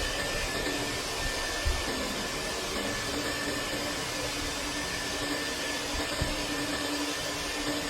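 Dryer-vent cleaning vacuum or blower running steadily, a rushing whir of air with a faint high whine, as lint is pulled out of a long-uncleaned dryer vent. A few soft knocks sound against it.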